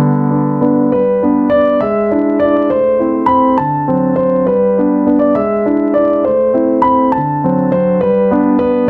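Background music: piano playing a steady melody of notes over held bass chords.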